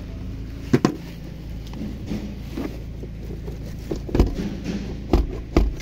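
Scattered knocks and clicks of plastic centre-console trim being handled and worked loose by hand, a few sharp ones about a second in and several more near the end, over a steady low hum.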